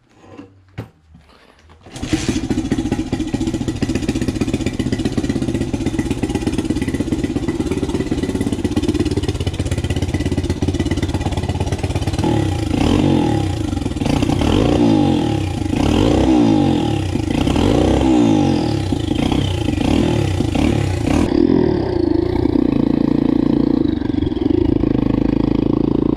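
A 150 cc pit bike's single-cylinder engine starts about two seconds in after a few clicks and settles into running. From about halfway it is revved repeatedly, its pitch rising and falling, and near the end it runs steadily under way as the bike is ridden.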